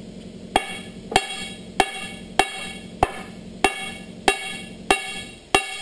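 Hammer blows on the worn steel tire of a 1907 Baldwin 0-6-0 steam locomotive's driving wheel, driving the tire off the wheel centre. There are nine evenly spaced blows, a little under two a second, starting about half a second in, and each one rings briefly like struck steel.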